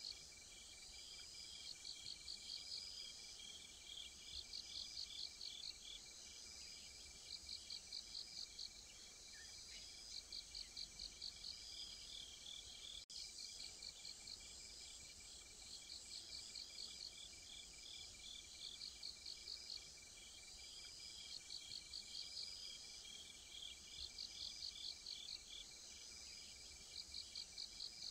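Faint chorus of crickets and other singing insects: fast pulsed chirping phrases about a second long that repeat every couple of seconds, over a steady high-pitched trill.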